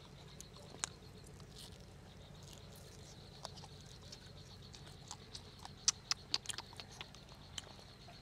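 Faint chewing and lip-smacking of steamed chicken being eaten by hand, with scattered sharp wet clicks that bunch together a little past halfway.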